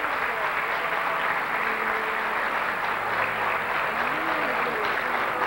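A hall audience applauding and cheering as a steady wash of crowd noise, with music playing faintly underneath.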